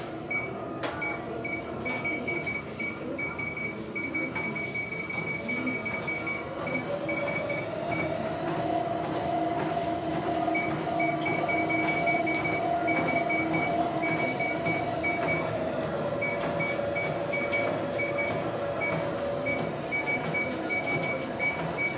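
Treadmill motor running with a steady whine and footfalls on the belt, while the console beeps in quick repeated runs. The motor's pitch rises about eight seconds in and drops again about sixteen seconds in, as the belt speed is changed.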